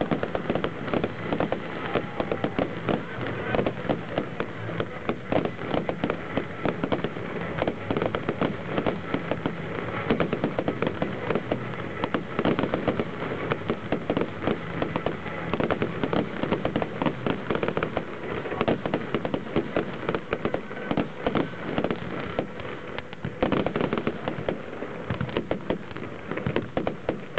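Aerial fireworks display with many shells bursting at once: a rapid, unbroken barrage of bangs and crackling.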